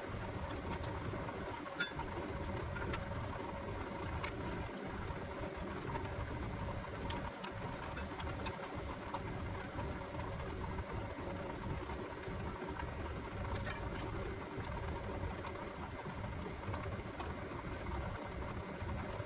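A steady mechanical hum with a few faint steady tones, broken by occasional light clicks and taps.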